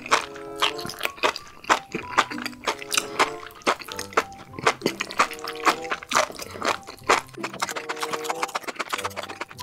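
Wet slurping and chewing of spicy enoki mushrooms and noodles in red sauce: quick, sharp mouth clicks and sucking sounds, many a second, over background music.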